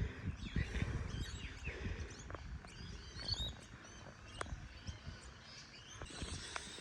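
Wild birds chirping in short, scattered calls in rainforest, with a few faint taps.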